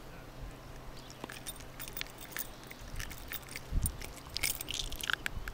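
Small clicks and scrapes of steel long-nose pliers working a deeply set hook and lure out of a pike's mouth. There is a soft thump about two-thirds of the way through, then a quick run of clicks.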